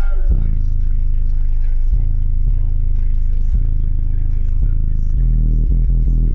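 Car-audio subwoofers playing heavy, deep bass at high volume, with repeated bass hits. The bass gets louder at about five seconds in.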